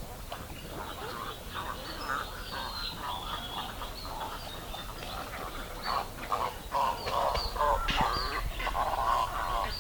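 Several birds calling together: repeated harsh, rasping calls mixed with short, high chirping notes. The calls grow busier and louder in the second half.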